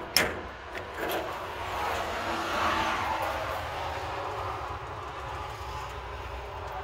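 A sharp click from the metal service-body compartment door just after the start, then a passing vehicle's rushing noise that swells and fades over a steady low rumble.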